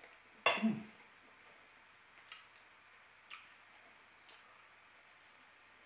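Knife and fork working on a plate of rice and chicken: a short scrape about half a second in, then three light clinks of metal cutlery on the plate, about a second apart.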